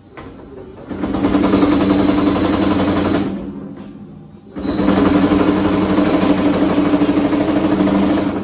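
Baileigh PH-28HD power hammer pounding a sheet-metal panel in a rapid stream of blows, shaping a large bead into it. The hammering comes in two runs, about two and four seconds long, with a short pause between them, over the steady hum of the machine.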